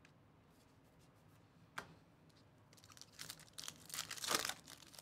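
A foil trading-card pack (Donruss Elite Football) being torn open and crinkled by hand, a run of rustling and tearing over the last two seconds. There is a single click about two seconds in.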